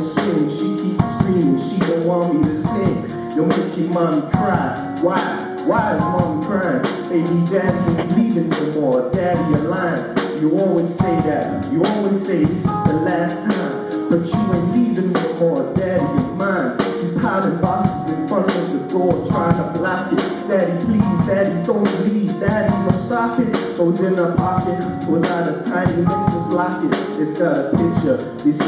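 Live band music: a male vocalist singing through a microphone over a drum kit keeping a steady beat.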